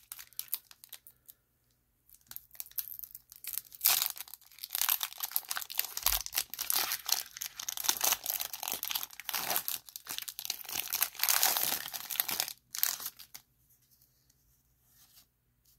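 Foil booster-pack wrapper being torn open and crinkled by hand: a run of crackling tears and rustles that starts a couple of seconds in and stops a couple of seconds before the end.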